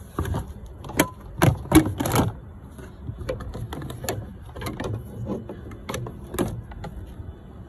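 Plastic cowling and trim pieces of a Tesla Model S being pulled and unclipped by hand: a run of irregular clicks, snaps and knocks, the loudest cluster about one to two seconds in.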